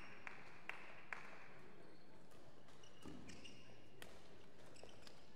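Sports hall ambience between badminton rallies: a few sharp taps about twice a second during the first second, then a steady hall background with faint squeaks and knocks from play on other courts.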